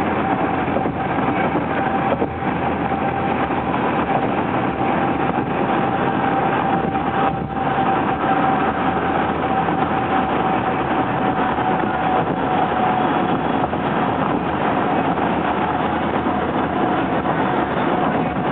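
Road noise inside a car travelling at highway speed: a steady rush of tyres and wind, with a thin steady whine running through it.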